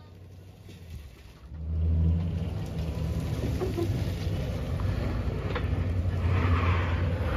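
A vehicle engine idling with a steady low hum. It drops away for about the first second and a half, then comes back and holds. A rustling scrape comes near the end.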